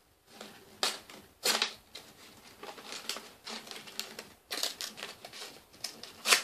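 Cardboard toy box and its packaging being picked at and pulled open by hand: irregular clicks, scrapes and crinkles, with louder scrapes about a second in and again just before the end.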